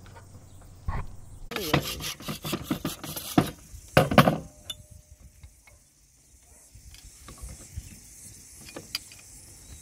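Quick mechanical clicks and rattles of a handbrake lever being worked. About four seconds in comes a louder, short metal clatter, followed by scattered small clicks.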